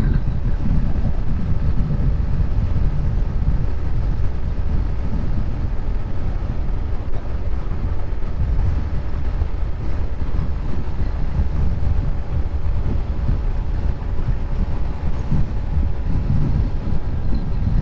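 Heavy wind buffeting on the microphone of a motorcycle ridden flat out at about 110 km/h. Under it is the steady drone of the Honda SP 125's single-cylinder engine held near top speed.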